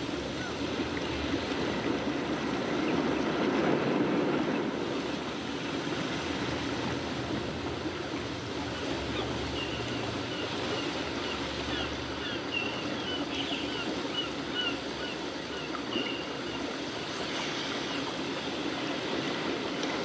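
Graphite pencil scratching on paper in quick, short shading strokes: a steady scratchy hiss.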